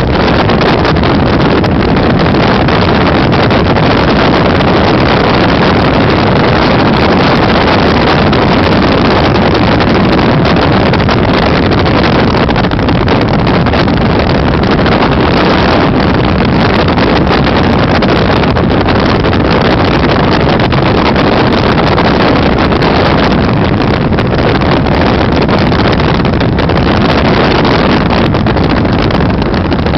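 Helicopter's engine and rotors running, heard from on board: a loud, steady, unbroken drone.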